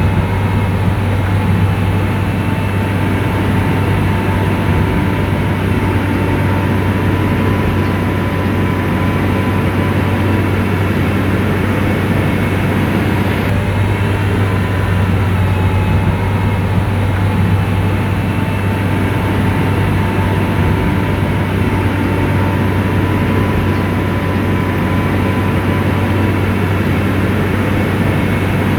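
Heavy diesel engine of a motor grader running steadily under load, a deep constant drone with a faint steady whine above it.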